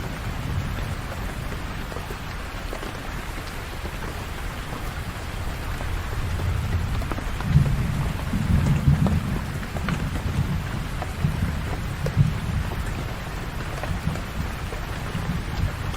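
Steady rain falling, with a low roll of thunder that swells about halfway through and rumbles for several seconds before fading.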